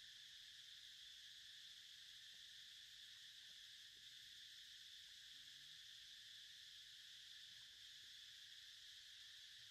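Faint, steady insect chorus: a constant high-pitched buzz that does not change throughout.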